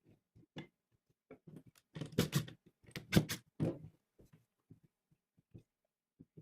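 Irregular knocks and clatters of wooden pieces being handled, loudest in a cluster about two to four seconds in.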